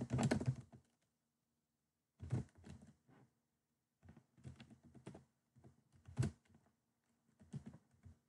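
Typing on a computer keyboard: short bursts of keystrokes with pauses between them, the loudest run right at the start.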